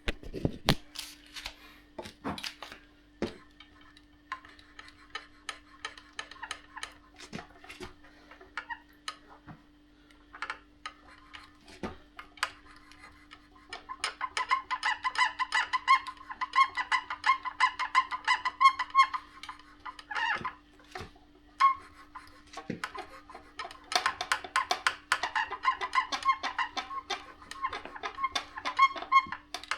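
Fault noise from a Freeboy J15 Max: irregular crackling clicks throughout, and two long runs of rapid high squeaky creaking, the first about halfway through and the second near the end. Over it runs a faint steady hum.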